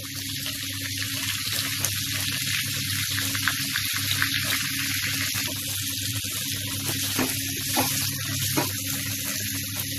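Stuffed brinjals and potato pieces frying in hot oil in a pan over a high flame: a steady sizzle with many small crackles and pops, over a steady low hum.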